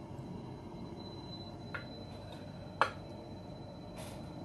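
Metal serving spoon clicking against a glass baking dish as food is lifted out: a faint tap about two seconds in and a sharper clink near the three-second mark, over low room hiss.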